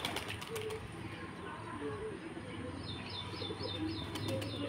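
Domestic pigeons cooing in short low calls while feeding. From about three seconds in, a small bird chirps in a quick run of repeated high notes.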